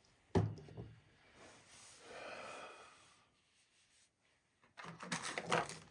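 A sharp click, a soft breath out, then crinkly handling noises of packaging near the end.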